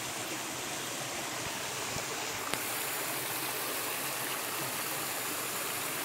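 Shallow rocky mountain stream flowing steadily, water running over stones and a small cascade, with a single faint tap about two and a half seconds in.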